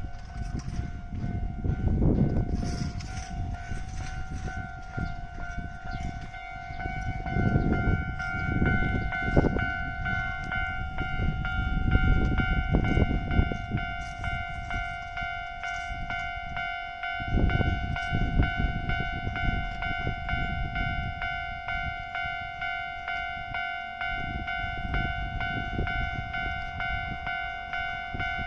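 Japanese level crossing warning bell ringing steadily in a pulsing two-tone clang, over the low rumble of a train passing over the crossing.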